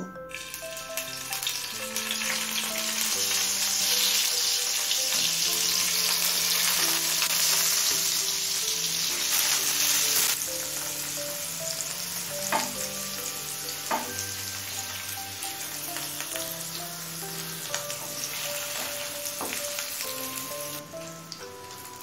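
Paneer cubes sizzling as they shallow-fry in hot mustard oil, loudest in the first ten seconds or so and then settling lower as they brown. A few sharp knocks of a wooden spatula turning the cubes come about two-thirds of the way in.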